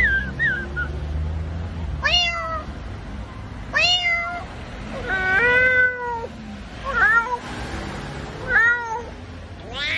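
A man imitating a cat with his voice: five separate meows, one of them longer and drawn out, after a brief whistled warble at the start.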